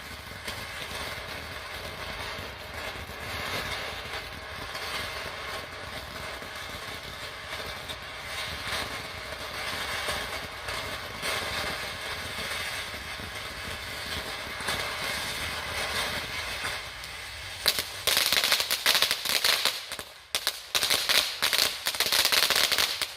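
Ground fountain firework spraying with a steady hiss, then breaking into two stretches of loud, rapid crackling before it stops near the end.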